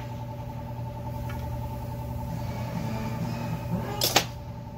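An engine idling steadily with an even hum, and a single sharp click about four seconds in.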